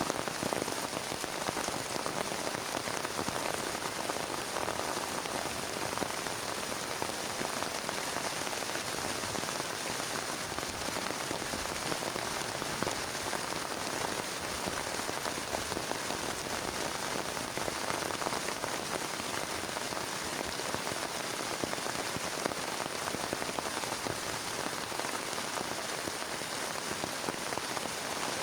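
Heavy rain falling steadily on a plastic tarp: a dense, even patter of many small drop impacts, with no thunder.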